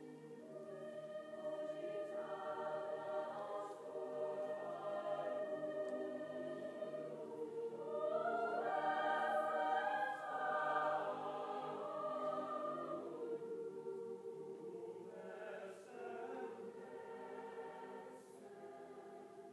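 Large choir singing long-held notes, swelling to its loudest about halfway through and then softening.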